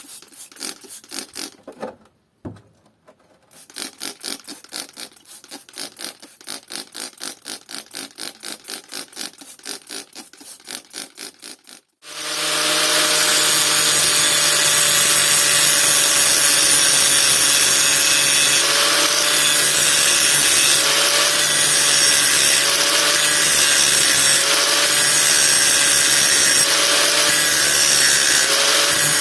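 Hand-tool rasping strokes on wood, about three a second, with a short pause. About twelve seconds in, a power tool starts and runs steadily and loudly, with a low hum and a slightly wavering higher whine.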